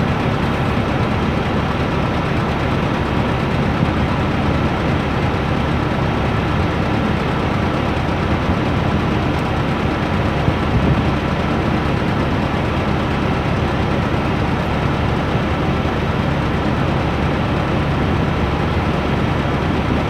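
Heavy engine idling steadily, an even low sound that does not change.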